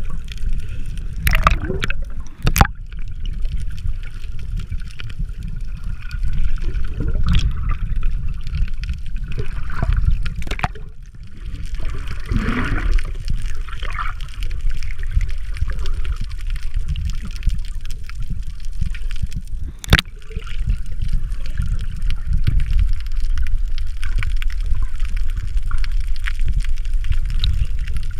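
Water sloshing and gurgling around a camera held just under the surface, with a steady low rumble and a few sharp clicks.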